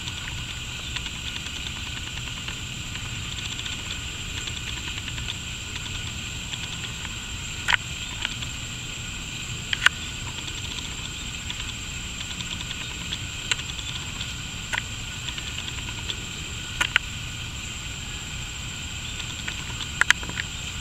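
Steady outdoor background noise: a low rumble with a constant high hiss and a thin high tone over it, broken by a few scattered sharp clicks.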